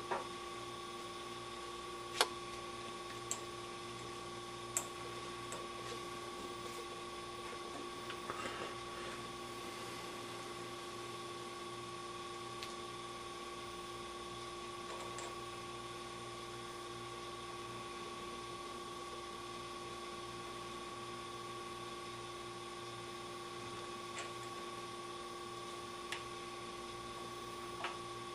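Steady hum with scattered small clicks and taps of metal carburetor parts and bolts being handled on the engine. The loudest tap comes about two seconds in, and a short cluster of them around eight seconds.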